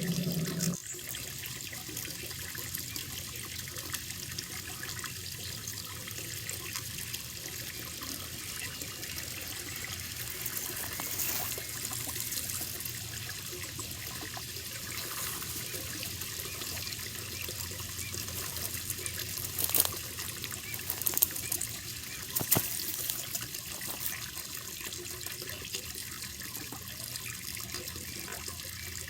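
Koi pond water running and trickling in a steady splashing hiss. A low hum cuts off under a second in, and a few sharp louder splashes or clicks stand out about two-thirds of the way through.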